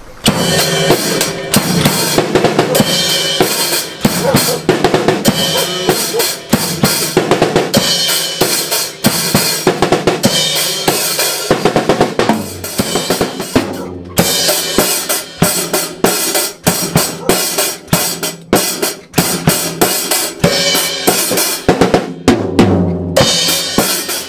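Acoustic drum kit played in a fast, steady groove: bass drum, snare, toms and cymbals struck in quick succession. The beat breaks off briefly about 14 seconds in and again near 22 seconds before picking up.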